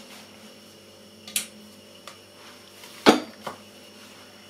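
Kitchenware handled on a countertop: a light clink about a second and a half in, then a sharper knock about three seconds in with a smaller one right after, as the metal baking tray is moved. A faint steady hum lies underneath.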